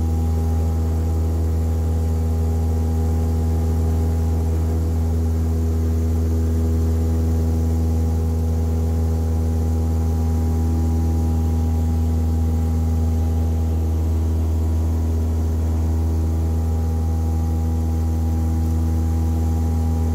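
Cessna 172S's four-cylinder Lycoming IO-360 engine and two-blade propeller droning steadily, heard from inside the cabin, as the plane climbs out after takeoff.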